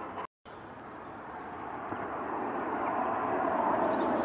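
Steady noise of an LNER A4 steam locomotive and its train approaching, growing louder, broken by a brief silent gap near the start.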